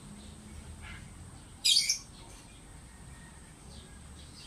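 A pet bird giving one short, loud call about a second and a half in, after a faint brief call just before it.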